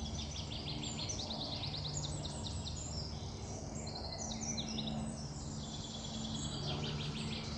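Woodland songbirds singing, with overlapping rapid trilled phrases, over a steady low background hum.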